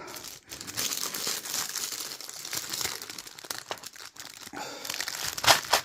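Plastic packaging crinkling and rustling as it is handled, louder near the end.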